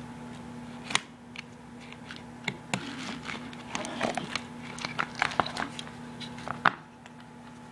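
Jump starter's battery cables and plastic clamps being handled in their storage case: scattered clicks and rustling, with a sharp click about a second in and another near the end.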